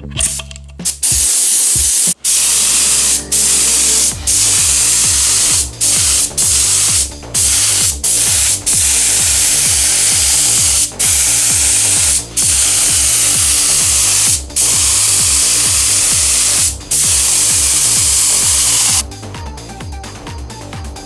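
Compressed-air spray gun with a 1.8 mm nozzle hissing as it sprays contact adhesive, in long bursts broken by about a dozen short pauses where the trigger is let go. The hissing stops about two seconds before the end.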